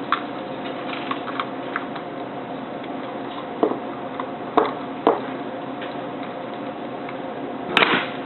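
Scattered clicks and knocks of the toggle switch and its wires being handled and pushed back down into the shampoo brush's housing, with a louder cluster of clatter near the end.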